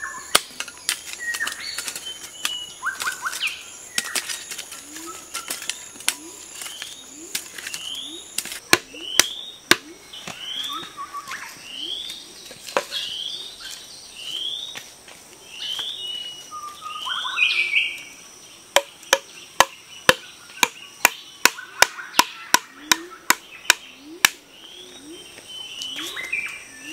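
Rural woodland ambience: a bird repeats a short rising chirp about once a second over a steady high insect buzz. Sharp knocks from a hand tool come in quick runs of about two a second while soil is worked and bamboo stakes are set.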